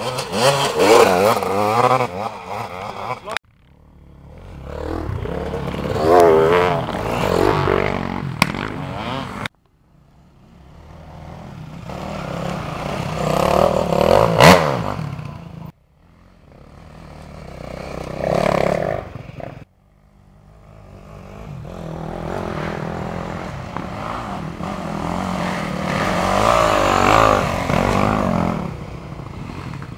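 Enduro dirt bike engines revving hard as the bikes ride past close by, in five short takes. Each take swells as a bike comes near and cuts off suddenly.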